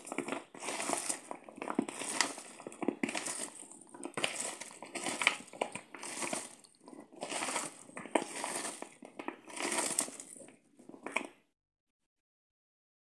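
A hand tossing and mixing raw sliced potatoes and onion half-rings in a plastic bowl, making a run of rustling strokes about one a second that stops suddenly near the end.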